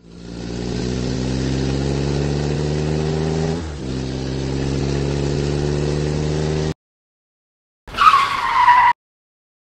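Vehicle engine accelerating, its pitch climbing steadily with a short drop about three and a half seconds in, like a gear change, then cutting off abruptly. After a second of silence comes a brief screeching skid, falling in pitch, as the vehicle brakes to a stop.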